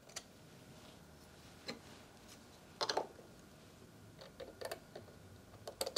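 Scattered light clicks and taps of small parts being handled: screws, a slim metal tool and a 3D-printed plastic bracket. The clicks come more often near the end.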